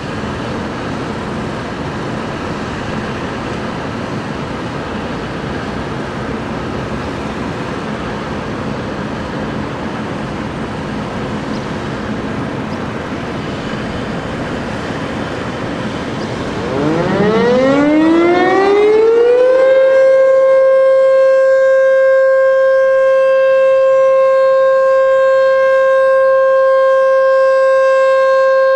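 A steady background hiss, then about 17 seconds in the H.O.R. Super-Sirex 50 HP outdoor warning siren winds up. Its pitch rises for about two seconds, then settles into a steady tone that it holds: the start of its alert signal.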